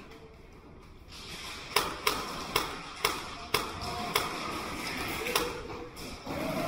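Airsoft guns firing single shots indoors: a string of sharp cracks roughly half a second apart, starting a little under two seconds in.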